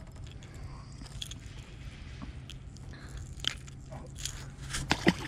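Scattered small clicks and crackles of handling as a bass is unhooked from a crankbait, the clicks coming more often and louder after about three seconds, over a low steady hum.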